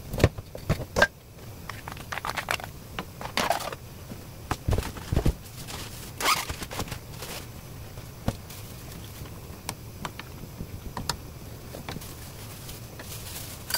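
Wooden spoon stirring napa cabbage and broth in a pan, with scattered scrapes, clicks and knocks, busiest in the first half and sparser after that.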